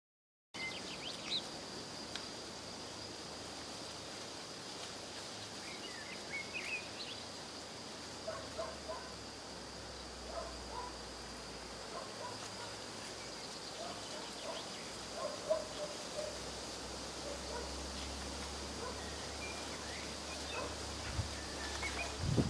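Countryside ambience: a steady high-pitched insect drone with scattered short bird calls over a faint low rumble, and a few low thumps near the end.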